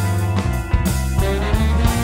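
A band playing, with a steady drum beat under electric guitar, bass and horns (trombone and baritone saxophone).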